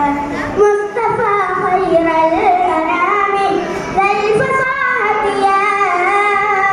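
A young boy singing solo into a microphone, holding long, sliding, ornamented notes with brief breaths between phrases.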